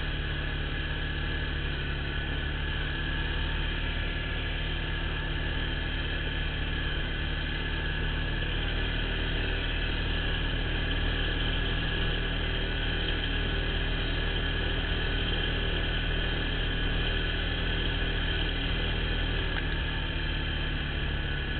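ATV engine running steadily while the quad is ridden along at an even speed, its pitch holding level with no revving or gear changes.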